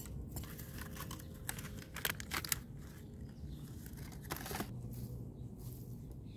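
Hand trowel scraping and digging into loose garden soil, with rustling as a small plant's root ball is handled and set into the hole. There are a few short crunchy scrapes about two seconds in and one longer one past the four-second mark.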